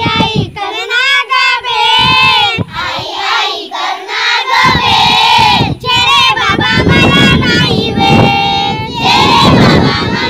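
A group of young children singing a Marathi school poem together in unison, with some held notes.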